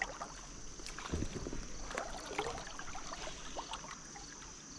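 Faint water splashing with small knocks, over a steady high-pitched drone of insects.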